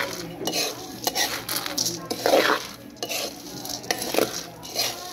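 Coffee beans being dry-roasted in a metal pan, stirred with a metal spatula: repeated irregular sweeps of the beans rattling and scraping across the pan, with the spatula grating on the metal.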